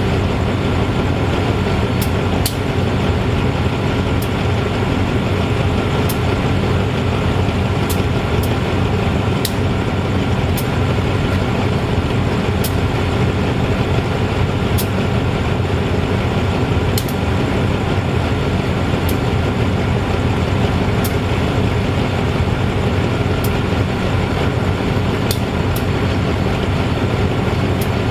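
State Railway of Thailand GE-A class diesel-electric locomotive idling while stationary: a steady diesel drone, with sharp high ticks every second or two.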